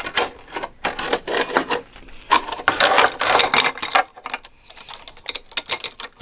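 Fingerboard (miniature finger skateboard) clattering over the plastic keys of an electronic keyboard: rapid, irregular clicks and clacks of the board and wheels hitting and knocking the keys, thinning out around the middle.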